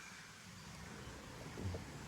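Faint outdoor nature ambience: a steady soft hiss with low rumble underneath and a soft low thump near the end.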